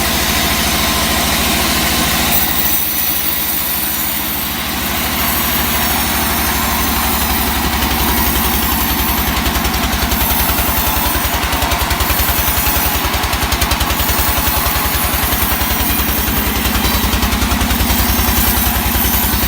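Sawmill machinery running: a steadily running engine with an even, rapid low throb.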